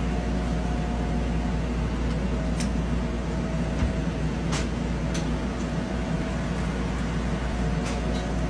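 Steady low mechanical rumble and hiss, with a few faint clicks.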